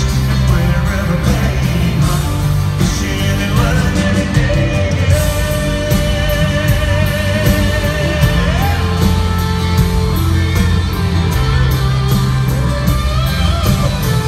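A live country band plays, heard from the audience in a large hall: a male lead vocal over acoustic guitar and keyboards. A steady beat becomes clear about five seconds in.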